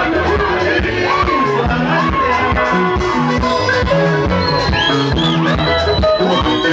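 Live Zimbabwean rumba band playing: electric guitar lines over bass and drums, with a steady dance beat.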